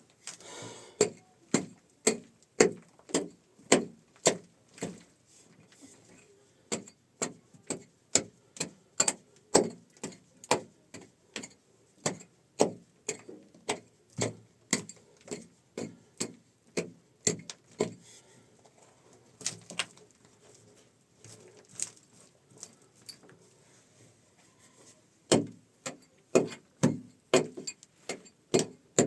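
A hand tool striking something hard over and over, about two blows a second, in runs broken by short pauses.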